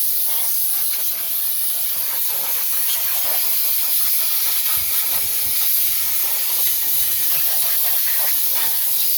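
Steady, high-pitched hiss of a pressurised jet running without a break.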